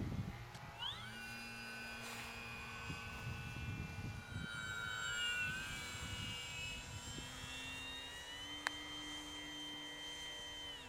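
Electric motor and propeller of a Multiplex Park Master 3D aerobatic model plane whining in flight. Its pitch rises as the throttle opens about a second in, wavers through the manoeuvres, then cuts off suddenly at the end. Wind buffets the microphone underneath, with a single sharp click late on.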